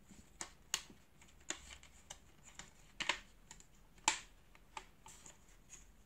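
Irregular light clicks and taps of plastic and rubber as a rubber seal is pressed onto a Dyson DC37 vacuum cleaner's plastic cyclone housing by hand. The loudest click comes about four seconds in.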